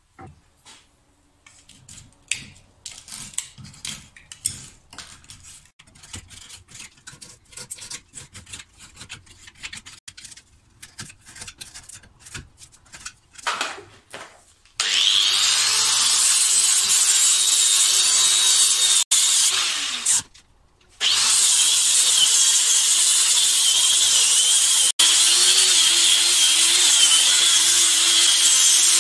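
Irregular hand scraping and cutting strokes on the bark edge of a wooden slab, then about halfway in an angle grinder with a blue disc starts grinding the wood with a steady high whine, stops briefly once, and begins to spin down at the end.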